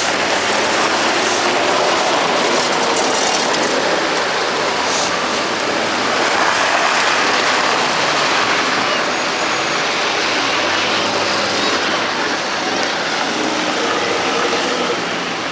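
Nissan Patrol GR four-wheel-drive vehicle on the move off-road: a loud, steady rushing noise with no distinct engine note standing out.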